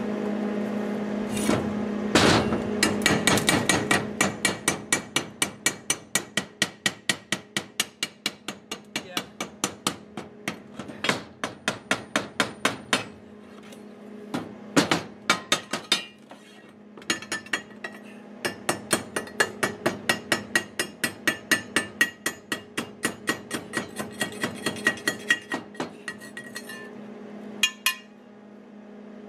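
Steel chipping hammer knocking slag off fresh 6013 stick welds on a steel angle bracket: rapid sharp taps, about three to four a second, in long runs with a few brief pauses.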